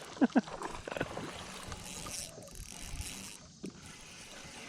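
Water sounds around a small fishing boat, with a few light knocks in the first second.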